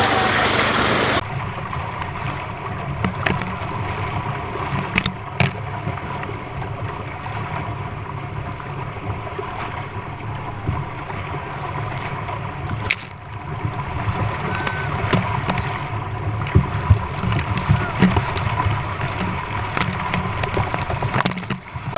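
Water and trout rushing out of a fish-stocking truck's tank through its discharge pipe into the lake: a loud steady rush that drops abruptly about a second in to a lower, steady rumble with a faint steady whine and scattered sharp knocks.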